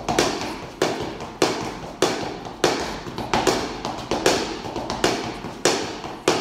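Broomstick used as a flamenco cane, struck on a wooden floor in a steady beat of about one and a half strikes a second, some in quick pairs, each with a short ringing decay.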